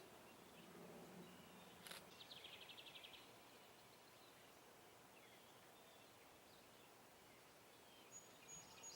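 Near silence with faint bird chirps; about two seconds in a single click is followed by a rapid, high trill lasting about a second.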